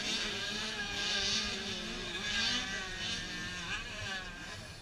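Several motocross dirt bike engines revving up and down on the track, their pitches rising and falling over one another.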